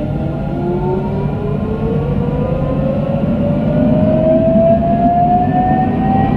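Electric traction motors of a Casablanca tram whining in several tones that rise steadily in pitch as the tram gathers speed, over the low rumble of the running gear, heard from inside the car.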